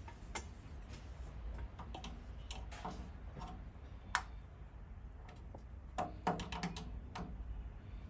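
Light, scattered clicks of a screwdriver working the plastic thermostat dial of an electric water heater's lower element as the dial is turned, the sharpest click about four seconds in and a quick run of clicks around six to seven seconds in.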